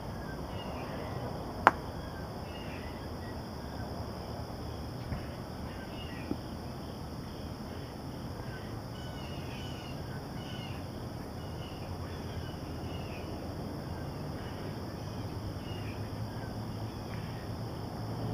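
Outdoor background noise with scattered faint bird chirps, and one sharp click a little under two seconds in, with two smaller clicks a few seconds later.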